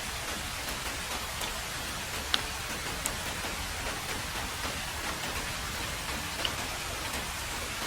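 Heavy rain falling steadily on a road, an even hiss with a few louder single drops striking close by, three times in all.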